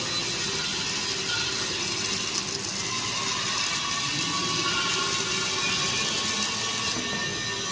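Two welding arcs of an automatic double-sided prop welding machine crackling steadily as both torches weld the ends of a steel scaffolding prop tube at once. The highest part of the crackle drops away about seven seconds in.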